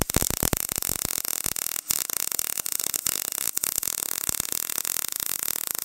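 MIG welding arc crackling and sizzling steadily as a bead is laid on steel tubing, with a brief break a little under two seconds in.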